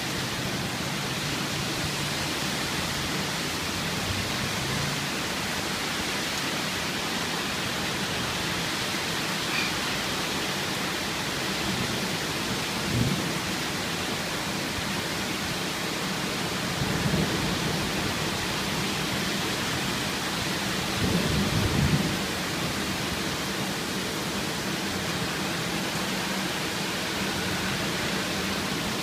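Heavy rain pouring steadily in a thunderstorm, with a few brief louder low rumbles in the middle.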